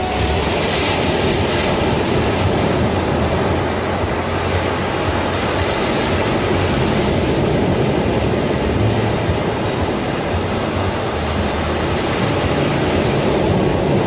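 Ocean surf breaking on a sandy beach: a steady wash of waves, with a brighter hiss as a wave breaks about six seconds in.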